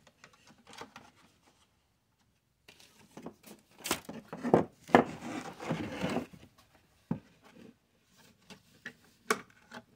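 Plastic model parts and a wooden strip being handled and pressed together on a plywood work board: scattered taps and clicks with rubbing scrapes, busiest in the middle, and a sharp click about seven seconds in and another near the end.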